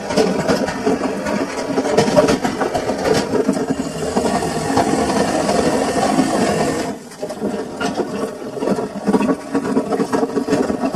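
Samsung washing machine running mid-cycle with its drum turning, a steady busy churning with a brief lull about seven seconds in.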